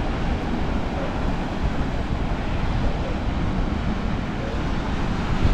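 Wind buffeting the microphone over a steady outdoor rush of noise, with no single clear source standing out.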